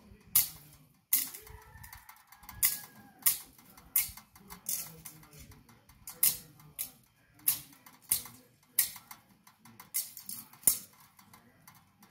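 A hand tool chopping into weeds and soil while clearing a garden bed: a run of sharp strikes, about one every half to three-quarters of a second, uneven in spacing and force.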